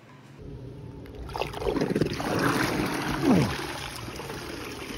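Water splashing and streaming off a Beatbot AquaSense robotic pool cleaner as it is hauled out of the pool while still switched on. The splashing starts about a second in and is loudest a little past the middle.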